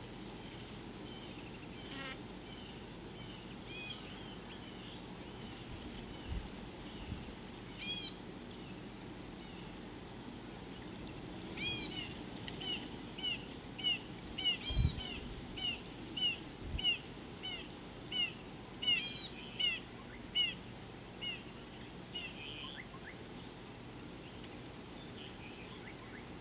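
A bird calling in a long run of short, sharp notes, about two a second for some ten seconds, with a few scattered calls before it. A few faint low thumps are heard here and there.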